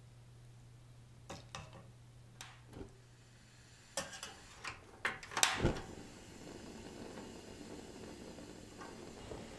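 A few soft clinks of a metal ladle against a steel pot. Then a tabletop cassette-gas grill is lit: several sharp clicks from its ignition knob and a thump as the gas catches about halfway through, followed by the burner's steady hiss.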